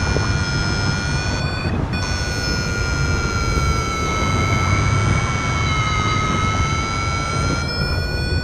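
Paraglider variometer giving one steady electronic tone that sags slightly in pitch around the middle and rises again, over wind rushing on the microphone.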